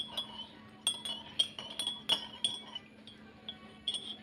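Ceramic tableware clinking: a run of sharp, irregular clinks with a short ring, about seven or eight of them, as the bowl and plate are handled while eating.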